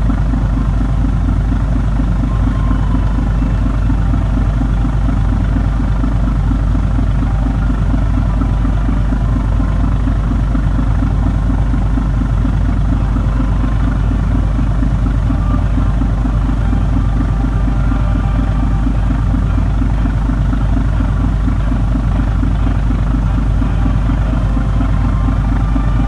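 Sightseeing cruise boat's engine running at cruising speed, heard from on board as a loud, steady low drone with a fast pulsing beat.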